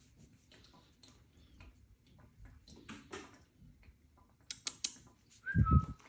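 Scattered light clicks and taps as a cat grapples with a wand toy's lure on a wooden floor: claws and the toy scraping and knocking on the boards. A few sharper clicks come about four and a half seconds in, and near the end there is a louder thump with a brief high squeak.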